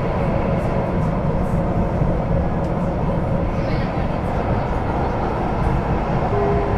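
Duewag/Kiepe B80D light-rail car running along the line, a steady rumble of wheels and traction equipment heard from inside the passenger compartment.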